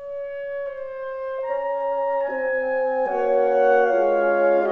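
Instrumental background music: one held note to begin with, then further sustained notes entering one after another about every second, building into a fuller, louder chord.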